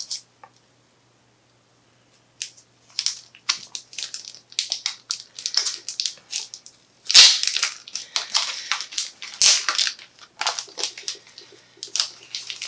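Packaging crinkling and rustling as a mail package is opened by hand, in irregular crackling bursts that begin about two seconds in and are loudest in the middle.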